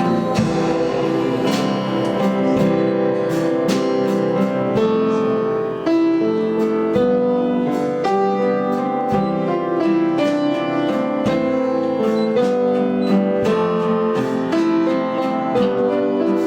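Instrumental worship music: piano or keyboard chords with guitar, held notes under a steady strummed rhythm.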